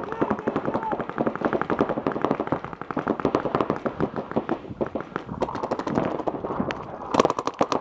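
Paintball markers firing in rapid strings, several guns at once, a fast continuous crackle of shots. About seven seconds in, a louder, sharper string of shots close by.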